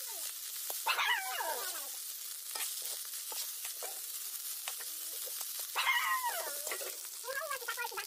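Fish roe sizzling as it is stir-fried in an iron wok, with a steady hiss and light scraping ticks of stirring. Two cries falling in pitch cut across it about a second in and about six seconds in, and a wavering call begins near the end.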